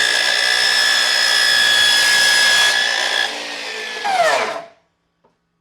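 Ryobi 36V cordless miter saw running at full speed with a steady whine, cutting through a small piece of wood. About four seconds in it surges briefly, then the whine falls quickly and stops as the blade brakes to a halt.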